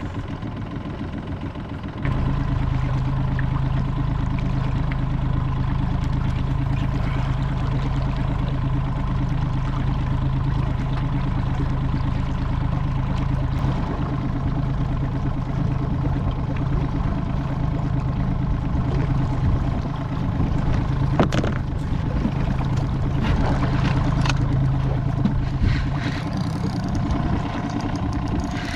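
Boat's outboard motor running at steady trolling speed, a constant low hum that picks up about two seconds in and eases off near the end. A single sharp knock sounds about two-thirds of the way through.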